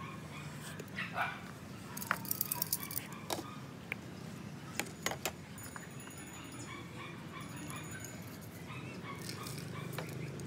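Utensils and small cups clicking and tapping against a steel pot as food is served, with a quick run of clicks about two seconds in and a few single taps after. Faint short animal calls come now and then over a steady low background hum.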